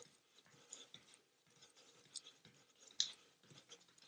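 Bare feet tapping and scuffing on a yoga mat during mountain climbers: a few faint, uneven soft taps, the loudest about three seconds in, with near silence between.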